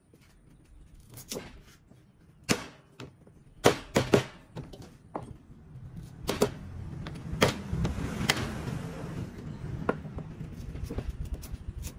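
Heavy cleaver chopping on a thick wooden chopping block: single sharp knocks at uneven intervals, a dozen or so, the loudest a quick cluster about four seconds in. A low steady rumble runs underneath from about halfway.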